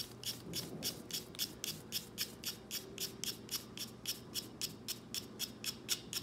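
Craft knife blade scraping a black soft pastel stick in quick, even strokes, about five a second, shaving it into pigment powder.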